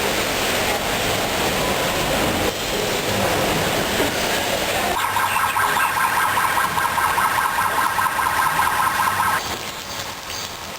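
A steady rushing noise, then about five seconds in an electronic warbling alarm, two pitches pulsing rapidly, sounds for about four seconds and cuts off suddenly.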